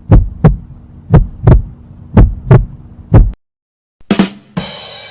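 Heartbeat sound effect: low double thumps, lub-dub, about once a second over a faint hum, stopping after about three seconds. Near the end, a brief click and then a sharp hit that rings and fades.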